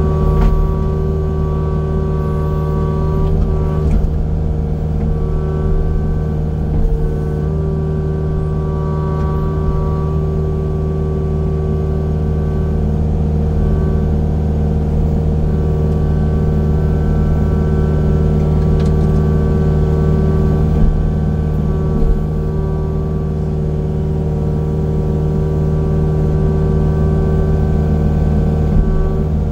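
Heavy land-clearing machine's engine running steadily, its tones stepping slightly in pitch a few times, with a few brief knocks over it.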